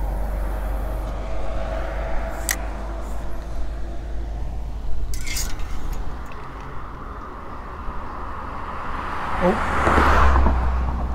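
Road traffic on the bridge beside the walkway: a steady low rumble of cars, with one vehicle swelling past near the end. Two sharp clicks break in, a couple of seconds apart.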